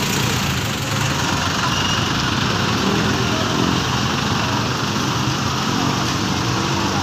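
Passenger jeepney's diesel engine running as it pulls past close by, its note climbing a little around the middle, over the steady noise of street traffic and motorcycles.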